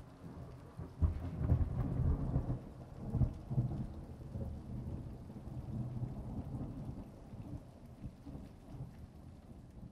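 Steady rain with low rolling thunder rumbles, swelling about a second in and again around three seconds, then easing off.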